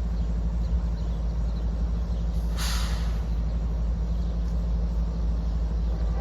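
CSX diesel locomotive running with a steady low rumble, with a short hiss of released air about two and a half seconds in.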